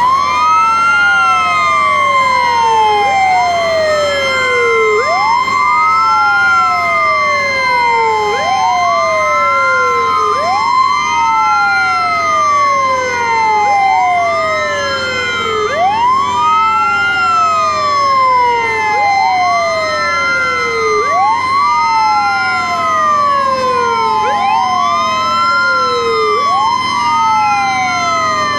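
Several fire truck sirens wailing together out of step, each rising quickly and falling slowly about every two seconds, over a steady high tone.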